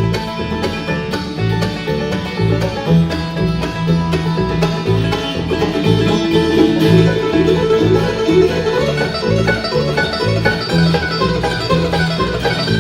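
A string band playing an instrumental break in a bluegrass song: plucked strings over a steady bass line on the beat, with no singing.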